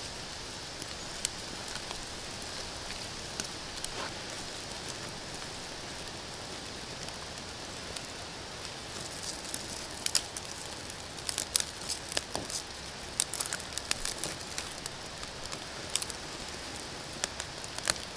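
Small kindling fire of birch bark and wet twigs catching: a steady faint hiss, with sharp crackles and pops that come thicker and louder from about halfway on as the kindling takes.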